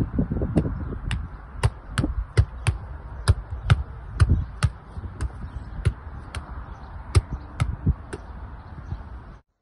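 Football struck again and again by a player's foot as it is juggled in the air without touching the ground: sharp thuds about two to three a second over a low steady rumble, stopping abruptly near the end.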